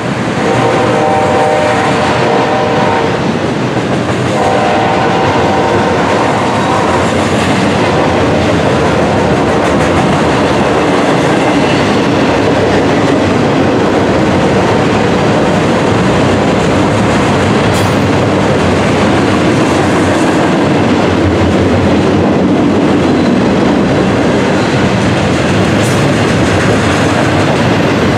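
A freight train's double-stacked container cars roll past with a steady rumble and clatter of wheels on rail. A train horn sounds a chord in the first seconds, breaks off about three seconds in, and sounds again from about four to seven seconds.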